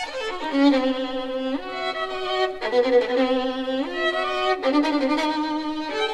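Violin playing a concerto live, holding long notes that move up and down by steps in its lower range, heard from a vinyl record transfer.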